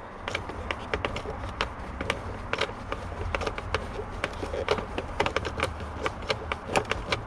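Hand tool working a stubborn screw by the ignition switch, making many light, uneven clicks and taps, several a second. The screw seems to spin in place rather than back out. A low steady hum runs underneath.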